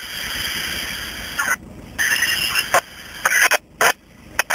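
Scratchy FM static from a Uniden 3500XLT scanner tuned to the ISS VHF channel-1 downlink, a weak, broken signal between transmissions. The hiss comes and goes, dropping out briefly at about one and a half seconds and again near the end.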